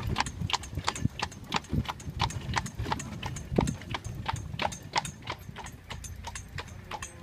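Carriage horse's hooves clip-clopping on stone paving, an even beat of about three to four hoofbeats a second over a low rumble, with one heavier knock about halfway through.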